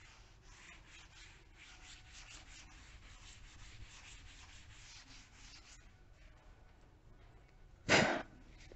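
Cloth duster wiping chalk off a chalkboard: faint repeated rubbing strokes that die down after about six seconds. A short, louder burst of noise comes near the end.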